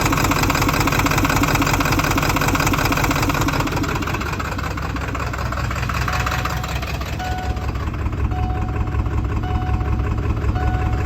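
Ford 7.3 L Power Stroke V8 turbo-diesel idling roughly and unevenly, which the owner suspects is a failing injection pressure regulator (IPR). The engine sound changes about four seconds in.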